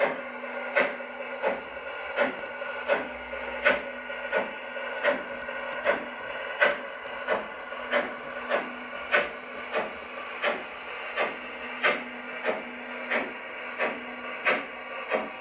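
LGB garden-scale model steam locomotive running slowly along the track: a steady whirring hum from its electric motor and gearing, with a sharp, regular tick about every 0.7 seconds.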